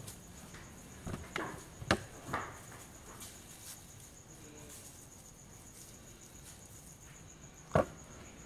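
Hands handling a small object: a few soft knocks and rustles in the first couple of seconds and one sharper knock near the end, over a faint, steady, high-pitched pulsing tone.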